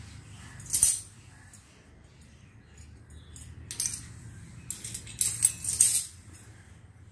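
Miniature stainless steel toy pots clinking and clattering as they are handled: one clatter just under a second in, then a run of light clinks from about four to six seconds in.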